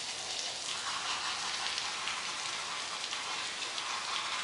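Garden hose spraying water onto a dog's coat and the pavement: a steady hiss like rain, a little stronger about a second in.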